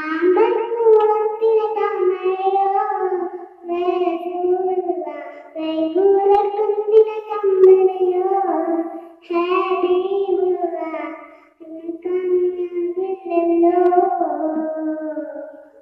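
A young girl singing solo, with held and gliding notes in phrases broken by short pauses for breath.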